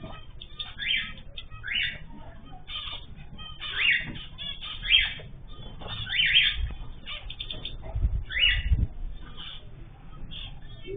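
Caged ornamental birds chirping and calling over one another in short, repeated calls, with a few low thumps about two-thirds of the way through.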